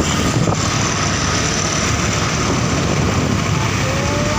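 Steady, loud vehicle noise, a bus engine running close by, with a short rising tone near the end.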